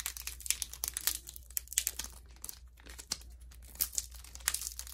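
Foil wrapper of a Pokémon trading-card booster pack crinkling and being torn open, a run of irregular sharp crackles.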